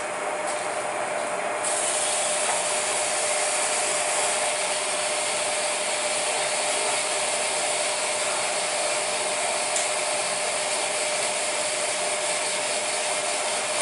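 Electric motor of a friction test stand running and spinning its bearing surface while it is polished by hand, to take off burrs: a steady motor whine under a continuous rubbing hiss that grows fuller about two seconds in.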